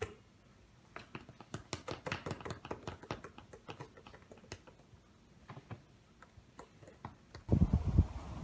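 Fingers tapping and drumming on a basketball: light, irregular clicks, thickest in the first few seconds and thinning out. About seven seconds in they give way to a sudden, louder, low steady rumble.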